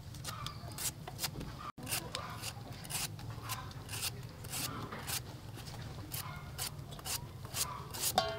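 Handheld metal slicer shaving thin slices off a raw bamboo shoot: short rasping strokes about twice a second, over a steady low hum.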